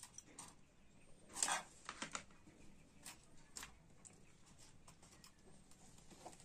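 Light clicks and taps with one brief scrape about one and a half seconds in: hands handling a picture frame and its hardboard backing.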